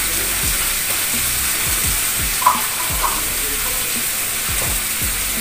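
Food frying in a hot pan with a steady sizzle while it is stirred, with two short clinks of the utensil about two and a half and three seconds in.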